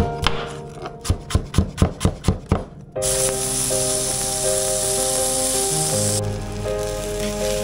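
A chef's knife chopping red onion on a wooden board, a quick run of knocks about five a second. About three seconds in it gives way suddenly to chopped onion sizzling in oil in a frying pan, a steady hiss that eases off a few seconds later. Soft background music plays throughout.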